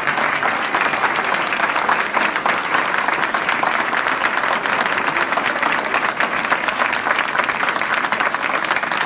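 A roomful of people applauding: dense, steady clapping.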